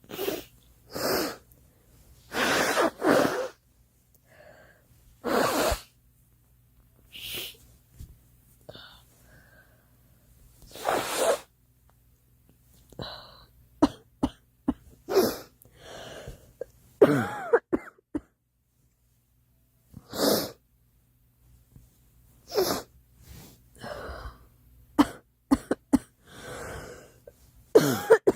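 A girl coughing over and over, in single coughs and short bouts with brief pauses between. Some coughs are harsh and voiced.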